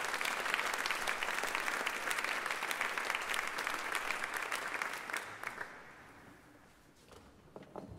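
Audience applauding, dying away about five to six seconds in as the conductor takes the podium, followed by a few faint knocks near the end.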